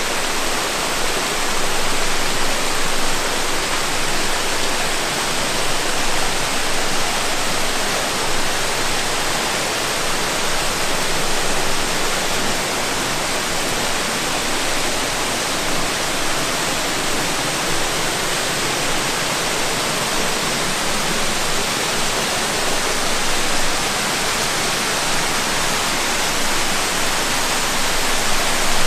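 Rushing water, a steady and unbroken rush.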